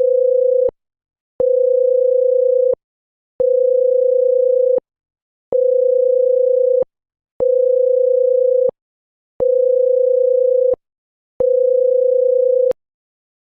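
Electronic beep tone: one steady pitch that pulses on and off seven times, each beep lasting a little over a second, about one every two seconds, with a faint click as each starts and stops.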